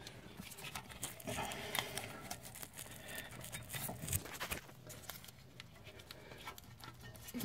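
Faint, scattered clicks and rustling of a gloved hand working the ABS wheel speed sensor wire out of its plastic retaining clips in the wheel well, with a sharper click near the end.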